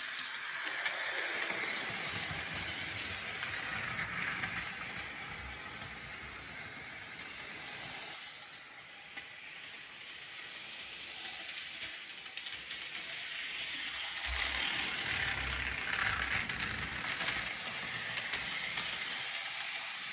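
HO scale Gordon model locomotive running around the track: a steady whir of its small electric motor with rattling and light clicks of the wheels on the rails. It fades as the engine runs to the far side of the layout a few seconds in, then grows louder as it comes back near.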